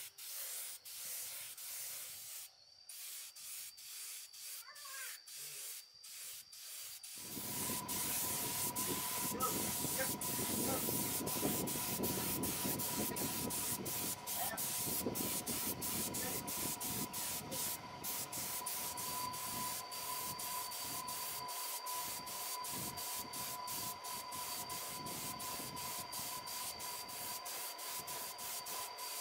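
Air paint spray gun hissing as it sprays red paint onto chainsaw housing parts. About seven seconds in, a louder, lower rushing noise with a steady high whine joins it and continues.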